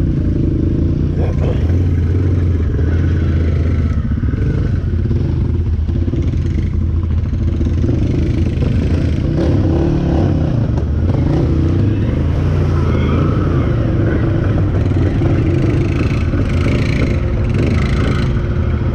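Can-Am 1000's V-twin engine running, its revs rising and falling as the throttle is worked.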